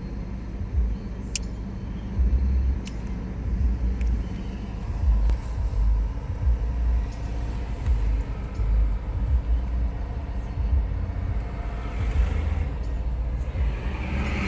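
BMW E46 320d's four-cylinder diesel engine idling unevenly, its speed swelling and sagging every second or so. This is the rough, jumping idle the car gets when cold with the heater on. A hiss builds up near the end.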